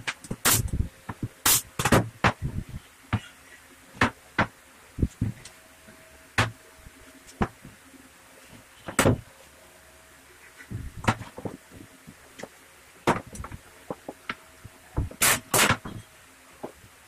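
Irregular wooden knocks and clacks as MDF pieces are handled and set down on a wooden workbench, some in quick pairs.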